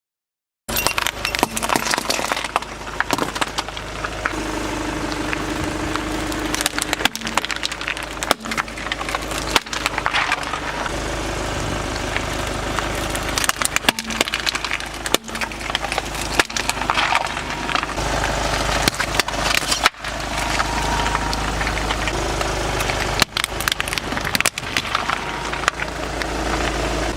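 A car's tyre slowly rolling over and crushing crunchy objects: repeated irregular cracking and splintering over the steady hum of the engine.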